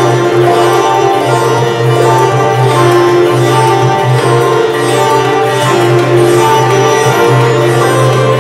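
Live instrumental music: a sitar playing a slow melody of held notes over a steady low drone.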